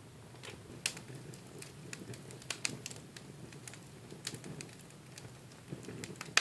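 Wood fire in a fireplace crackling: irregular sharp pops and snaps over the soft low rustle of the flames, with the loudest pop right at the end.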